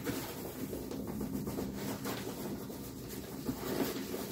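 Hands rubbing and rustling against the fabric of an inflated self-inflating sleeping mat while working at its valve, a faint, continuous scratchy sound.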